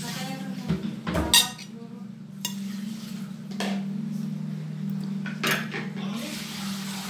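Ceramic plates and a spoon clinking and knocking during a meal, a few separate knocks with the loudest about a second in, over a steady low hum.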